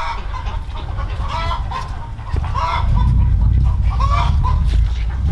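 Chickens clucking in short, repeated calls, with a low rumble underneath that grows louder about two seconds in.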